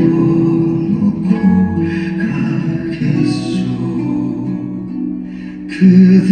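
Music led by acoustic guitar, its notes held and changing every second or so, swelling louder near the end.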